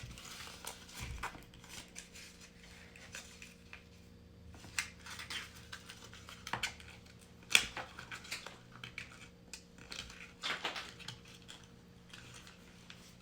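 Small plastic toy cars and playset pieces clicking and clattering as they are handled, in scattered irregular clicks, the sharpest about seven and a half seconds in.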